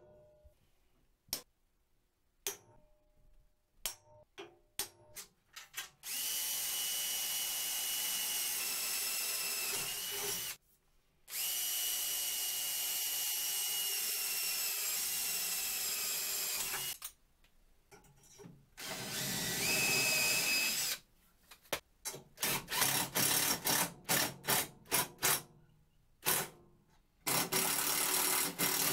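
A few light taps of a hammer on a centre punch, then a cordless drill running in long steady stretches as it bores into the table saw's metal front rail, its high whine holding through each run. Later it is triggered in short quick bursts before a final steady run.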